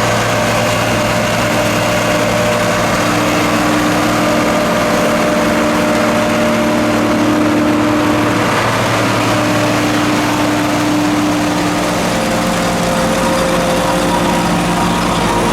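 John Deere 4440 tractor's six-cylinder turbo diesel running under steady load while a Sperry New Holland 782 forage harvester chops corn behind it. A constant engine and machinery drone, with a tone that fades in and out every few seconds.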